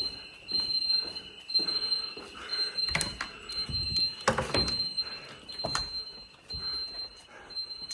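A building alarm sounding: a high beep repeating about once a second over a steady high tone. Several sharp knocks and thuds sound over it, the loudest about four seconds in.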